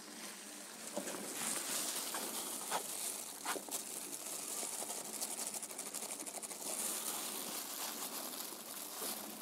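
Faint wet squelching and rubbing from a gloved hand and forceps working antiseptic through a goat's drained abscess cavity, with a few soft clicks.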